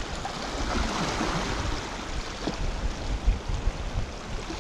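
Small waves washing and fizzing around shoreline rocks, with gusty wind buffeting the microphone as an uneven low rumble.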